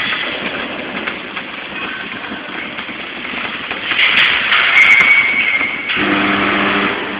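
Butt-welding machine at work: a steady mechanical hum, turning louder with hissing and crackling about four seconds in, then a low buzz near the end.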